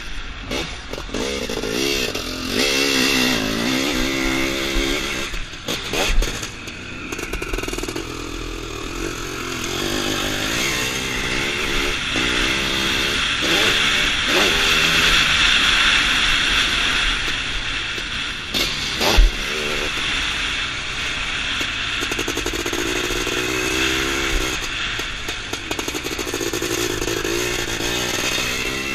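EML Zabel 700cc sidecarcross outfit's engine at racing speed, repeatedly revving up and dropping back through the turns and jumps, heard onboard. Two sharp knocks, one a few seconds in and a harder one past halfway.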